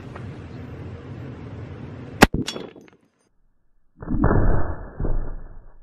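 Wind on the microphone, then a single .50 caliber rifle shot about two seconds in: one sharp crack with a short tail. A moment later comes a loud, muffled, deep boom lasting about a second and a half as the bullet strikes a thick block of bullet-resistant glass and bursts it into powder.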